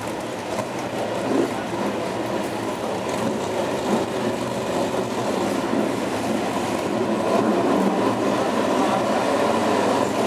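A pack of BriSCA F1 stock cars' V8 engines running at low speed, a dense steady rumble that grows slightly louder toward the end.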